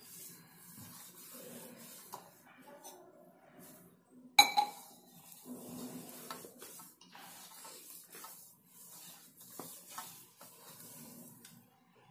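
Hands kneading soft, crumbly gulab jamun dough in a stainless steel plate: irregular soft scraping and rubbing of dough and fingers against the metal, with one sharp metallic clink a little over four seconds in.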